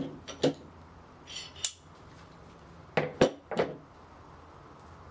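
Steel bar clamp being loosened and pulled off a workbench edge: sharp metallic clanks and clinks, one cluster at the start, a smaller scrape and click about a second and a half in, and another cluster about three seconds in.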